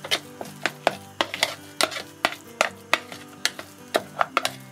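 A spoon stirring thick fish-cake paste in the plastic bowl of a food processor, knocking and scraping against the bowl: a quick run of sharp clicks, about four or five a second.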